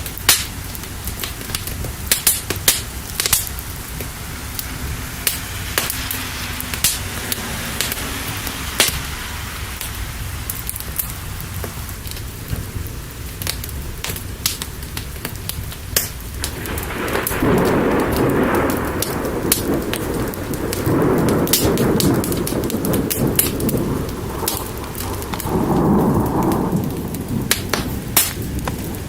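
Steady rain with sharp crackles and pops scattered through it, typical of a burning wood fire. From about halfway through, thunder rolls in three long rumbles.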